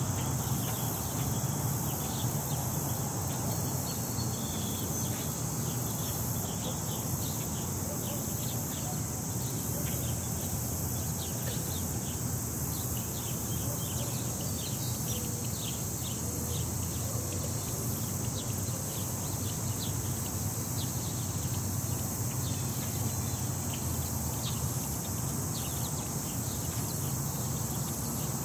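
Outdoor ambience: wind rumbling on the microphone under a steady high-pitched drone, with many short, high chirps through the middle and later part.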